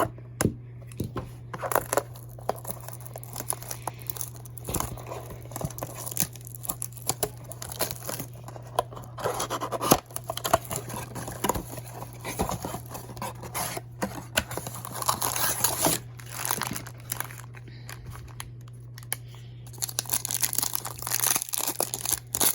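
Cardboard blaster box and trading card pack wrappers being torn open and crinkled by hand, in irregular rustles with sharp clicks, over a steady low hum.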